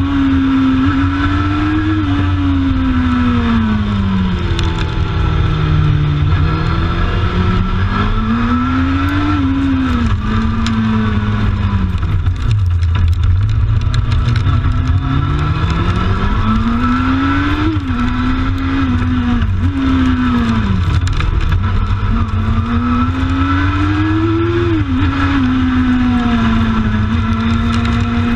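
Kawasaki ZX-12R inline-four engine of a racing sidecar, revving hard up and down through the gears at speed, its pitch dropping sharply at each upshift. It eases right down around twelve seconds in, then pulls up through the gears again, over a constant low rumble of wind and road noise.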